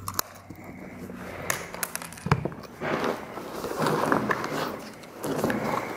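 Handling noise: a few sharp clicks and knocks over rustling and scraping as an SLR camera, its strap clips and a soft camera bag are handled.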